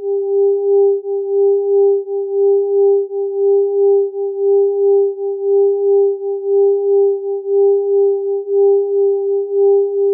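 Electronic sine tones at three close frequencies beating against each other: a steady tone near 400 Hz that swells and fades unevenly about two to three times a second, with a fainter tone an octave above.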